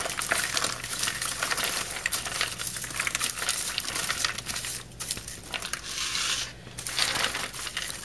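Freshly popped popcorn rustling and crackling as it is pushed by hand over the rim of one bowl and spills into another. The rustle is dry and continuous, full of small crackles.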